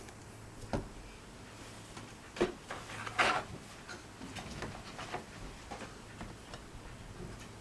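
Light, irregular taps and clicks of small card model pieces being handled and pressed into place on a work surface, the loudest two about two and a half and three seconds in, over a faint low hum.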